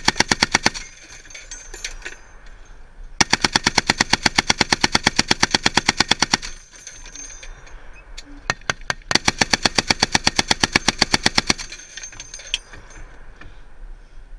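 .50 caliber machine gun firing long, rapid bursts at close range. A burst ends under a second in, a roughly three-second burst starts about three seconds in, a few single shots follow, and a longer burst comes near the middle, with fainter shots in the gaps.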